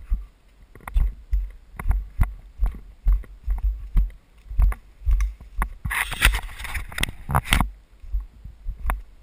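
Footsteps on a leaf-littered forest trail, about two a second, with thumps from a handheld camera. About six seconds in, a rustling of leaves and branches brushing past lasts under two seconds.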